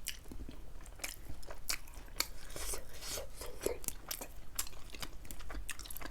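Close-miked eating: irregular wet clicks and crunches of food being bitten and chewed.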